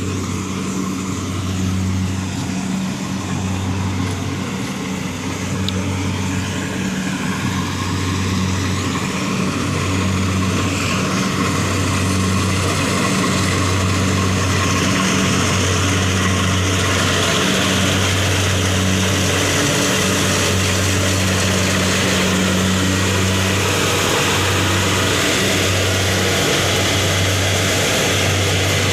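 Kubota-engined rice thresher running continuously, its engine giving a steady low hum that throbs at a slow, even beat. A broad rushing, whirring noise from the machine grows louder about halfway through.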